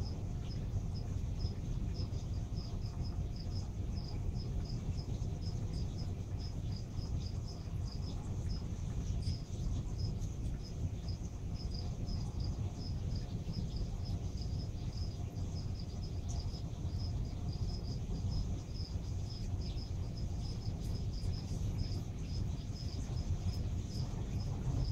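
Steady low rumble of reef aquarium pumps and water flow, with a short high-pitched chirp repeating about three times a second throughout.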